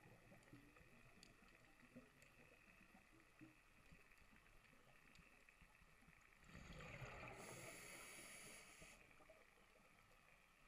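Mostly very quiet underwater, with faint scattered clicks, then a scuba diver's regulator breath: bubbles rumbling and hissing for about two and a half seconds just past the middle, muffled through the camera's underwater housing.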